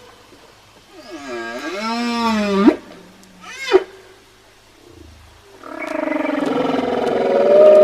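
Whale song: a long call starting about a second in that dips and then rises in pitch, ending in a quick upward sweep. A short rising-and-falling cry comes near the middle, then from about two-thirds through a long, steady, rich call with many overtones.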